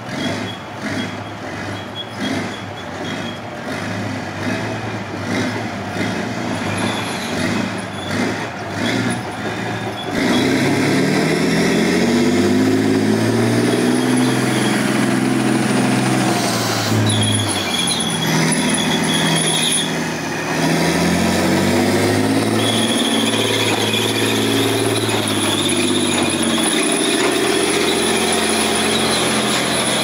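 Tracked Challenger 2-based Trojan armoured engineer vehicles driving past, their engines running and tracks clattering over the road. About ten seconds in the sound gets much louder as a vehicle comes close, with a high squeal from the running gear over the engine.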